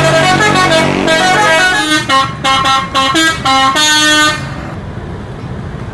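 Bus horn playing a short tune of several stepped notes, in the Indonesian 'telolet' style, stopping about four seconds in. A steady, quieter rumble follows.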